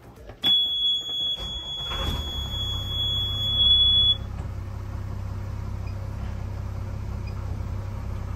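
Engine alarm buzzer sounding a steady high beep as the ignition is switched on, then the trawler's diesel engine cranks and catches about two seconds in and settles into a steady idle. The buzzer cuts off suddenly about four seconds in, the usual low-oil-pressure warning that stops once the running engine builds oil pressure.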